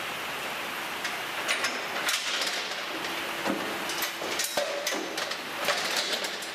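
A cow stepping out of a steel cattle crush: a string of irregular knocks and metal clanks from hooves on the floor plate and the rattling frame, over a steady hiss.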